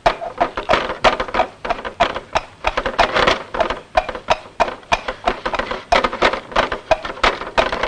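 Experimental film soundtrack of fast, irregular clicks and short chirping blips, a stridulating, insect-like texture.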